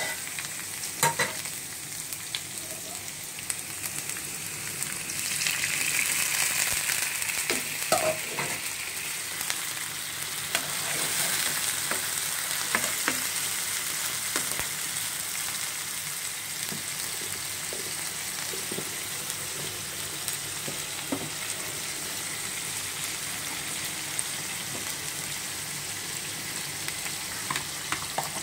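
Sliced onions sizzling in hot oil in a non-stick frying pan, with a few scrapes and clicks of a metal spatula stirring them. The sizzle swells louder about five seconds in, then settles to a steady hiss.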